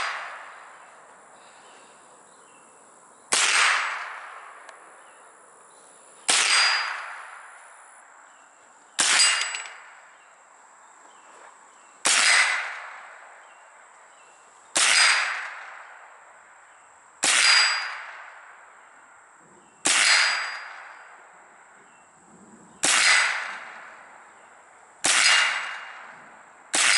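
Ten single shots from a Smith & Wesson M&P15-22 .22 LR rifle, about one every two and a half to three seconds, each followed by a ringing tone that dies away: the steel target ringing as it is hit.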